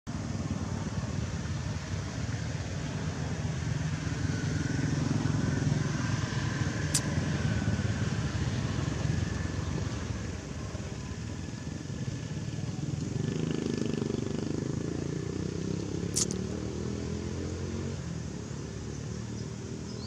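A motorcycle engine running, growing louder over the first several seconds and then slowly fading. Two sharp clicks stand out, one about a third of the way in and one near the end.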